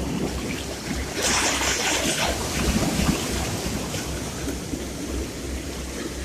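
Sea waves washing on the shore, with one wave breaking about a second in, a louder hiss of surf that fades over about a second.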